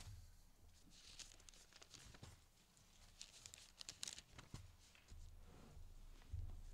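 Faint rustling and flicking of thin Bible pages being turned by hand, a few separate page flips over a low steady hum.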